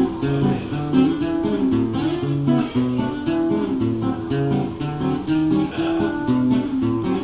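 Acoustic guitar playing a song's instrumental introduction: a steady, even pattern of picked chord notes over alternating bass notes, with no singing yet.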